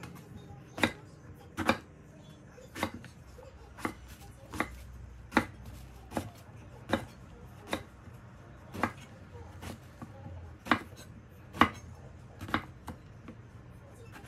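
A chef's knife cutting eggplant into chunks on a wooden cutting board, each cut ending in a sharp knock of the blade on the board. There are about fifteen knocks at an uneven pace of roughly one a second.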